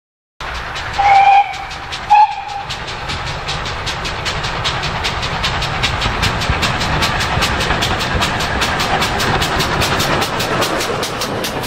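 GWR 9400 class pannier tank steam locomotive 9466 sounds two whistle blasts, the first the longer, about a second in. It then approaches and passes at work, with rhythmic exhaust beats and the running of its goods train.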